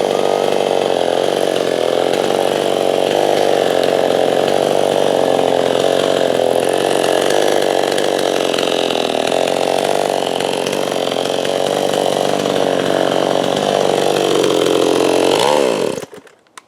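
Two-stroke chainsaw running steadily under load, ripping lengthwise through a softwood log to mill a slab freehand. About a second before the end the engine drops in pitch and cuts off suddenly.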